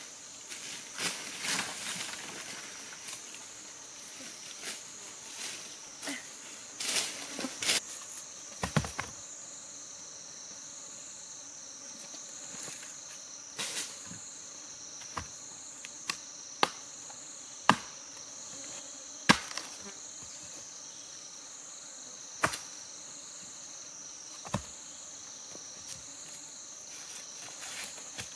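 Insects drone steadily and high-pitched in the forest throughout. Early on, footsteps and rustling run through dry leaf litter as a length of green bamboo is carried. From about halfway, a machete strikes the bamboo in single sharp chops a second or more apart, about eight in all.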